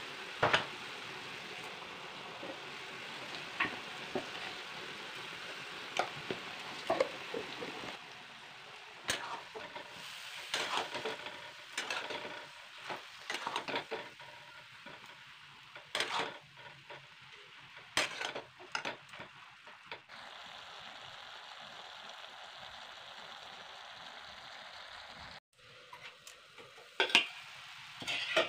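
Radish pieces sizzling in oil in a steel kadhai, with a metal spatula stirring them and scraping and clinking against the pan. The frying makes a steady hiss. The spatula strokes come in clusters through the middle and again near the end.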